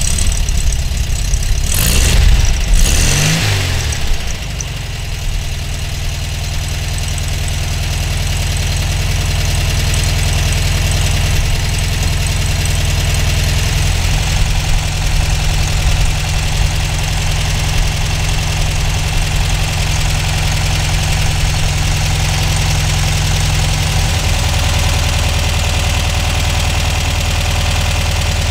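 Air-cooled flat-four engine of a 1962 VW Beetle, just started, revved twice about two and three seconds in, then settling into a steady idle.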